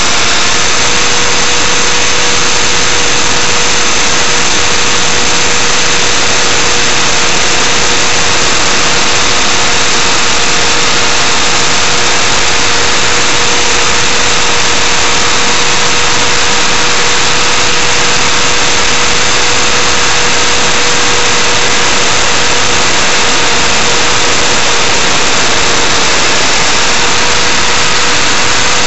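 ALIGN T-Rex 500 DFC electric RC helicopter in flight, heard from its own onboard camera: a steady whine from the motor and drive gears at a few fixed pitches, over a loud hiss of rotor wash and wind.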